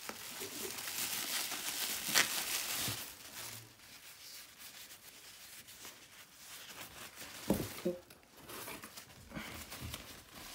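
Plastic bubble wrap and foam packing peanuts crinkling and rustling as hands dig through a parcel, then tissue paper being unwrapped. There is a sharp click about two seconds in, and the rustling is busiest in the first few seconds.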